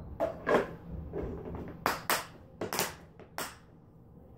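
Bead-filled slime being squished and pulled in the hands, giving a run of about eight sharp pops and clicks that die away in the last second.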